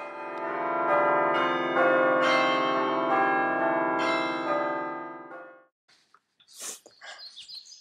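A peal of bells ringing, with new strikes coming about every half second over sustained ringing tones, fading out about five and a half seconds in; a few faint short noises follow.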